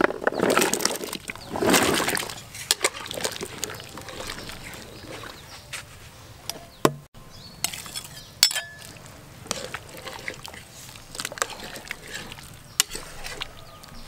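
Chunks of sweet potato tipped from a bowl splash and plop into a pot of hot liquid for about the first two seconds, followed by scattered sharp clinks of a metal spoon and ladle against the plate and the aluminium pot as more ingredients are scraped in and stirred.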